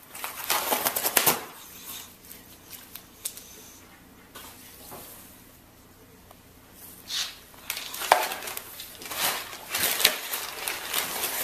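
English bulldog squeezing into a small cardboard box, the cardboard crumpling, scraping and tearing under it in bursts of rustling: a cluster near the start, a quieter stretch, then more from about seven seconds in.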